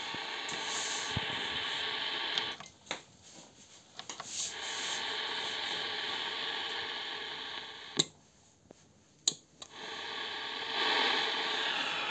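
Sailor R501 2182 kHz watchkeeping receiver's loudspeaker giving a steady hiss of static on an empty channel. The hiss is silenced twice for a second or two, with sharp switch clicks.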